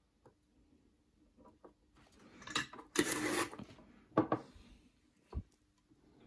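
Light handling sounds of a guitar push-pull pot and its wires on a wooden workbench: a scuffing rustle about three seconds in, then two short knocks.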